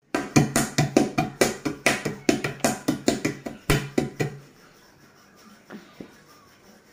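A baby's hands slapping a glass tabletop quickly and over and over, about five slaps a second, stopping about four seconds in.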